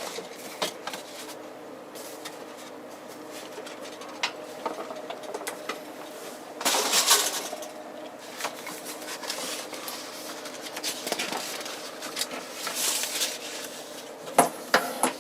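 Plastic model kit parts and packaging being handled on a table: scattered small clicks and knocks of plastic sprues and box, with two louder stretches of rustling about seven seconds and thirteen seconds in, over a faint steady hum.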